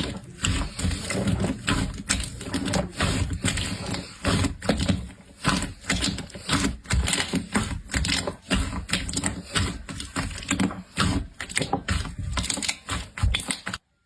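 Slime being squished and kneaded by hand, a dense, irregular run of sticky clicks and pops as air pockets burst. It cuts off suddenly near the end.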